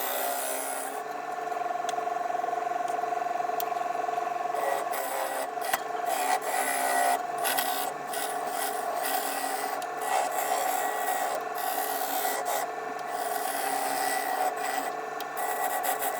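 Wood lathe running with a turning tool cutting the outside of a spinning, very wet green-wood blank: a steady motor tone under a continuous rasping scrape of the cut that rises and falls a little as the tool moves.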